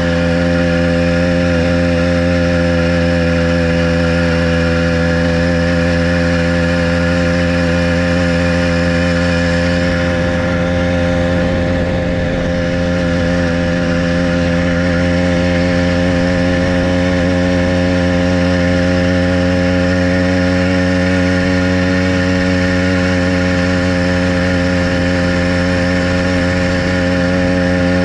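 Motorized bicycle's small petrol engine running steadily under way, its note dipping briefly about halfway through.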